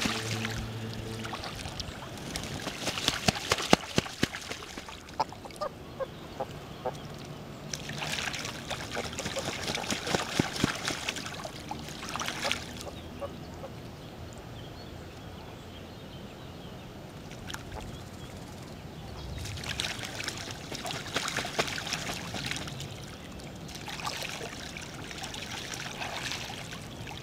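Geese bathing in shallow river water, splashing and beating the water in several bouts a few seconds long, with quieter stretches between.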